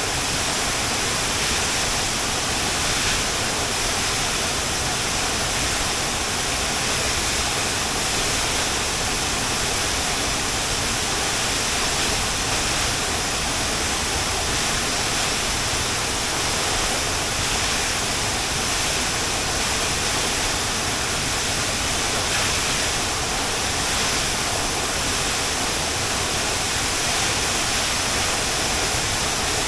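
Waterfall pouring steadily: a loud, even rush of falling water with no breaks.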